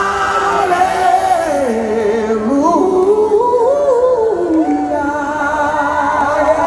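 Live gospel worship music: a solo voice sings long, gliding, held notes without clear words over steady sustained keyboard chords.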